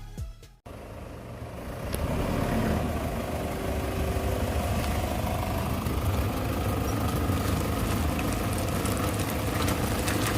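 Toyota Camroad-based camper van running, a steady low rumble that sets in about half a second in and holds.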